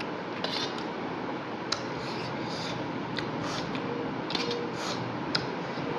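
Eating noises over a steady background hiss: a few sharp utensil clicks against a bowl and some short hissing mouth sounds while spicy noodles are eaten.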